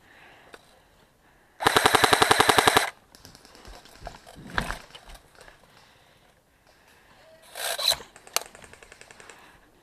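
Airsoft gun firing a rapid full-auto burst of a little over a second, evenly spaced shots. Near the end a second, shorter stretch of firing follows, with one sharp crack and then fainter rapid shots.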